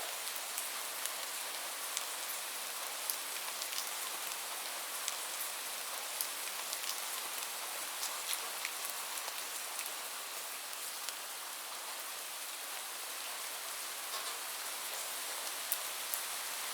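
Heavy rain falling steadily: a constant hiss with many sharp individual drops ticking on a surface.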